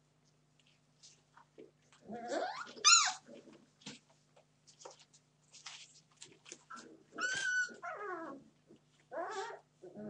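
Entlebucher puppies play-fighting, giving short yelps, squeals and small growls. A sharp high yelp comes about three seconds in and another around seven seconds.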